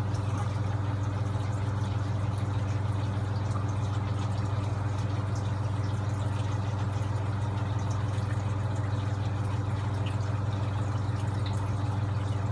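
Steady low electric motor hum with even overtones, unchanging throughout.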